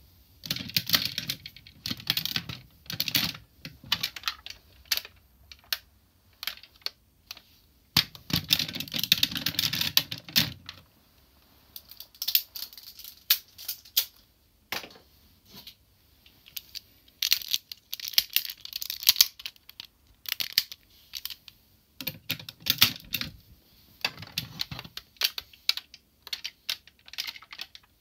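Hard plastic parts of a DX Tousai Zyuoh combining toy robot clicking and clattering as they are handled and fitted together. The clicks come in several dense runs, with single clicks in between.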